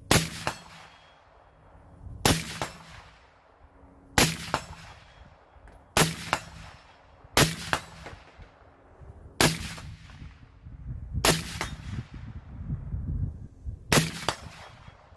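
Suppressed Sig M400 AR-15-style rifle firing eight single shots, about two seconds apart, through a Silencer Co suppressor: still not exactly quiet, each shot a sharp crack with a short trailing ring.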